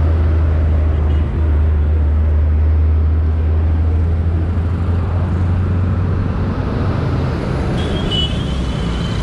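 A motor vehicle engine running steadily with a low hum, which fades away about seven seconds in. A brief high-pitched tone sounds near the end.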